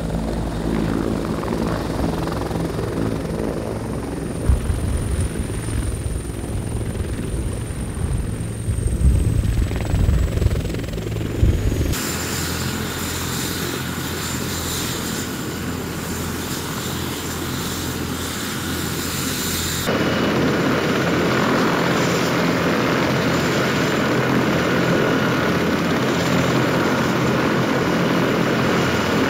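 Bell CH-146 Griffon helicopter's twin PT6T turboshaft engines and rotor: heavy low buffeting thumps while it hovers just off the ground, then a steady turbine whine with the rotor turning as it sits running on the ground.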